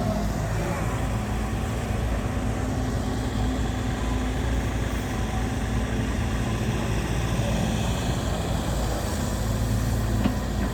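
Heavy diesel machinery running steadily with a low, even hum, and a short click near the end.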